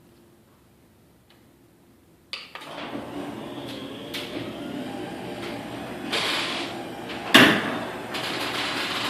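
Raynor Admiral II garage door opener starting up with a sudden clunk a little over two seconds in, then running with a loud whine and rattle as the door travels. A single loud bang about three-quarters of the way through.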